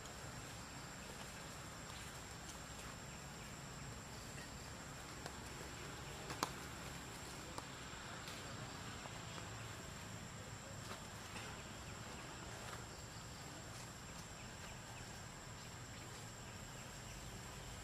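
Quiet outdoor ambience with a steady, high-pitched insect drone, broken by scattered faint clicks and one sharper click about six seconds in.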